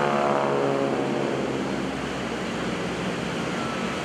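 Radial engines and propellers of SNJ/T-6 Texan aircraft passing by: a droning tone that drops in pitch over the first second or so as the aircraft go past, then fades into a steady rushing noise.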